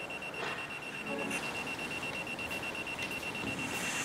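Rapid high electronic beeping, about eight beeps a second on one steady pitch, over quiet room noise with a few soft clicks.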